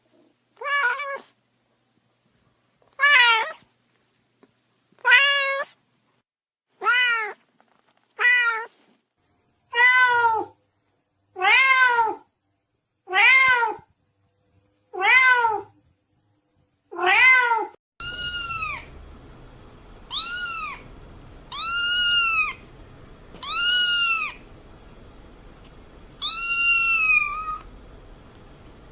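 Domestic cat meowing again and again, each meow about a second long with gaps between. About eighteen seconds in, a different recording begins, with a steady background hiss and higher-pitched, arching meows.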